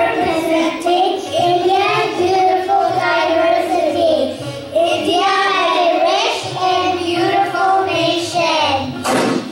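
A child singing a melody solo into a microphone, holding long wavering notes, over a soft low repeating beat. A brief loud noise comes near the end.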